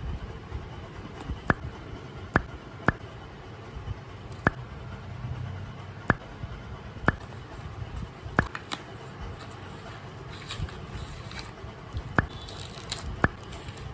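A series of short, sharp clicks, about one a second at uneven spacing, over faint handling and rustling noise, with some scraping near the end.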